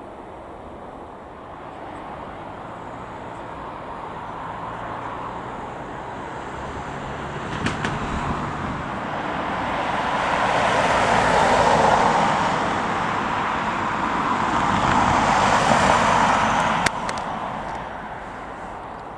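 A passing jet airliner: the engine noise swells over about ten seconds, peaks twice, then fades away. Two sharp clicks are heard, one near the middle and one shortly before the end.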